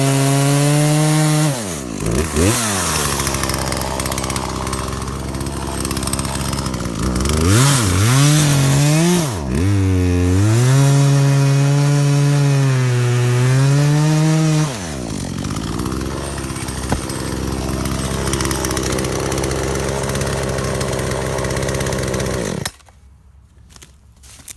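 Poulan PL3314 33cc two-stroke chainsaw running at high revs while cutting through a large log, the engine note dipping and swinging as the chain loads up in the wood. About fifteen seconds in it drops to idle, and near the end the engine shuts off suddenly.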